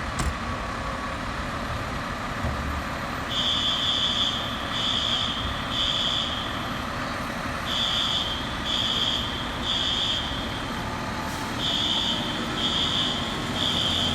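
An electronic beeper sounding short high beeps in groups of three, a group about every four seconds, starting about three seconds in, over a steady background rumble.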